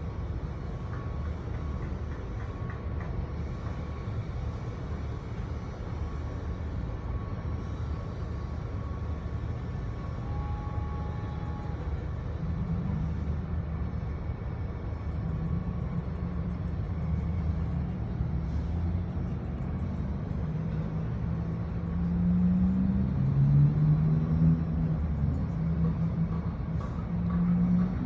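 A steady low outdoor rumble of city ambience. From about halfway through, a low pitched sound that wavers in pitch comes in over it and grows louder in the last few seconds.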